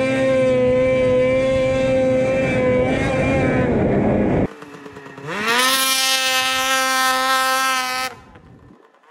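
Snowmobile engine held at high, steady revs, cutting off abruptly about four and a half seconds in. After a short lull a second snowmobile revs up quickly, holds high revs and cuts off near the end.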